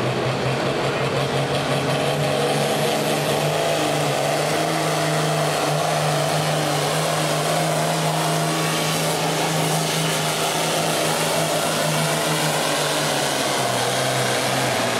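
Modified diesel pulling tractor's engine at full throttle under heavy load as it drags a weight-transfer sled. It is a loud, steady drone whose pitch rises slightly about two seconds in.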